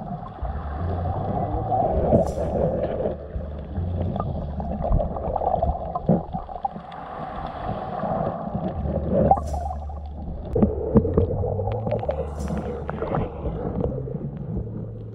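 Shallow sea water heard through an underwater camera: a muffled, continuous rumble and slosh as legs and feet move in the water, with a few brief hisses.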